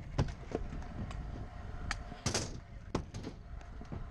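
Freestyle stunt scooter rolling over a concrete skatepark ramp, its wheels rumbling, with repeated sharp knocks and clacks from the deck and wheels. A louder hit comes about two and a half seconds in.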